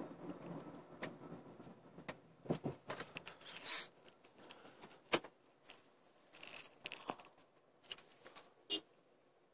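The car's road noise fades out as it slows to a stop. Scattered clicks, rustles and scrapes follow, the sound of the handheld phone being moved and handled.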